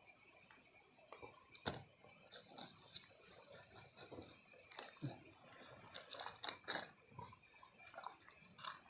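Light clicks and clinks of cooking utensils against a pot, a sharper one near two seconds in and a quick cluster about six seconds in, over a faint steady high-pitched tone.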